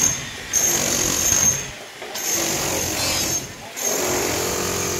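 Construction machinery at a concrete roof pour, running loud with a steady high whine over a rough clatter, cutting out briefly twice.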